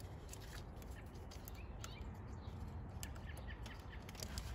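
Faint, scattered light clicks and taps from hands working on fuel hose fittings in a car's engine bay, with a few short rising bird chirps in the background.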